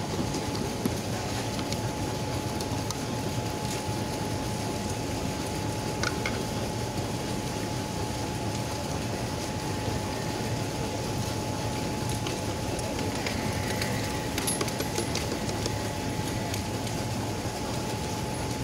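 Steady outdoor street background noise with a constant faint hum, broken only by a few light clicks.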